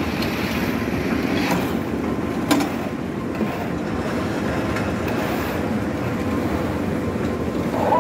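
Construction machinery at a concrete pour running steadily with a dense mechanical rattle. A sharp knock comes about two and a half seconds in and a lighter one about a second later.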